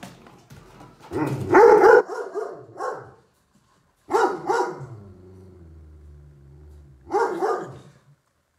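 Puppy barking in three short bouts, with a low growl between the second and third.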